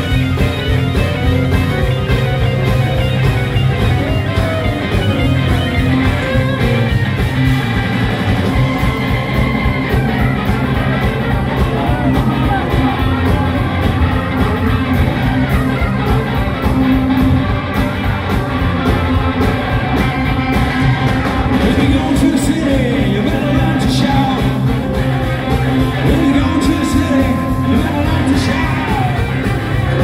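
Live blues-rock band playing loud, with electric guitars, drums and keyboard, and a voice singing over it.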